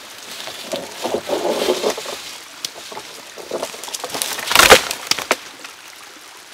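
Dry wood and brush crackling and rustling, with one loud sharp crack about four and a half seconds in, followed by two lighter clicks.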